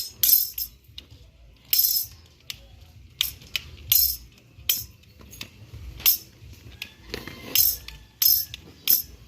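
Irregular sharp metallic clicks and rattles from an umbrella's metal ribs and frame being handled and worked on during repair.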